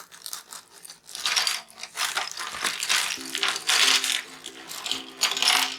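Plastic bag of small construction-kit parts being cut open with scissors and handled: repeated crinkling and rustling.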